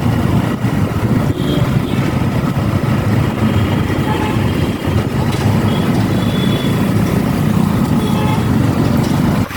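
Motor vehicle engine running with a steady, loud low rumble.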